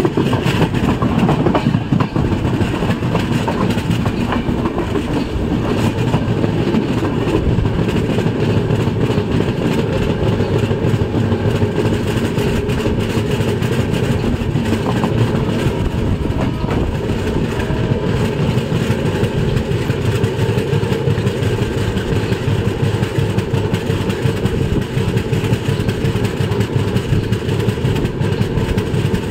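Passenger express train running along the track: a steady, continuous noise of the coach and its wheels on the rails.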